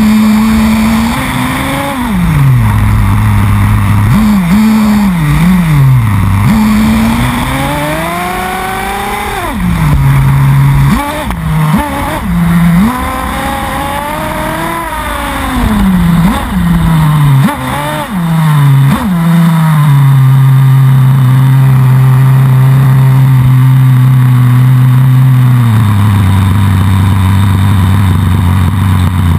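Nitro RC buggy's small glow-fuel engine, heard close up from on board, revving up and easing off again and again as the car is driven. For the last third it runs at one steady speed, then drops to a lower steady speed a few seconds before the end.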